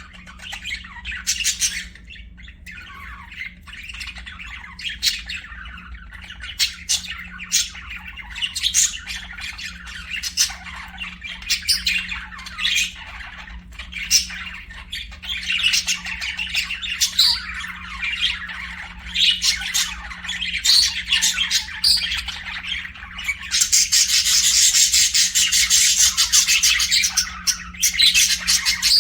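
Pet budgerigars chirping, squawking and warbling, with many short high calls overlapping throughout. About three-quarters of the way in they break into a stretch of rapid, dense chattering.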